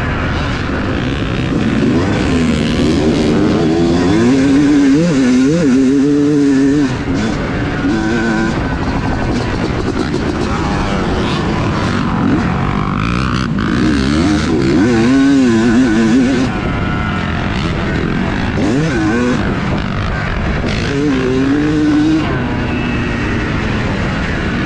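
Yamaha YZ250 two-stroke single-cylinder motocross engine at full race effort, its pitch climbing hard and falling back in several surges as the throttle is opened and shut, heard close up from on the bike.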